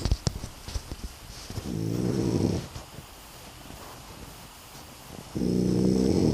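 A man snoring in his sleep: two loud snores with a buzzing pitch, each about a second long, some three and a half seconds apart.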